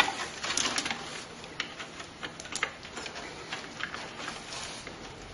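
Scattered light clicks and rattles of hands handling cables and plastic connectors inside a computer case, busiest about half a second in.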